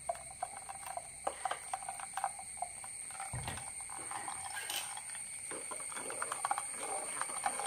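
Thick batter poured into a wire-mesh strainer over a steel bowl, then a spoon stirring and scraping it through the mesh: faint irregular clicks and ticks, with a soft thump about three seconds in.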